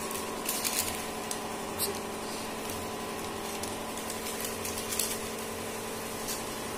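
A steady background hum with a few faint, light clicks and taps scattered through it.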